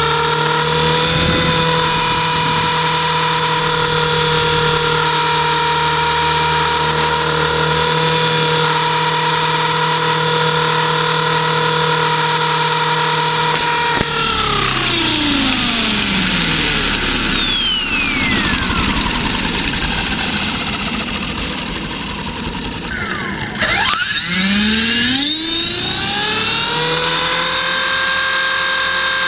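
Electric RC helicopter's motor, gears and rotor whining steadily, heard from a camera on the airframe. About 14 s in the whine falls away over several seconds as the rotor spools down. About 24 s in it rises again as the rotor spools back up, then holds steady.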